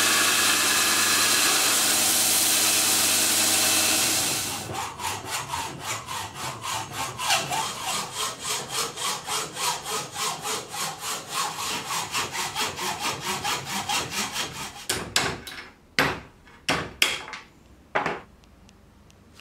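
A belt grinder runs steadily with a piece held against the belt, stopping about four seconds in. Then a hand saw cuts with regular back-and-forth strokes, two to three a second, for about ten seconds, followed by a handful of sharp knocks near the end.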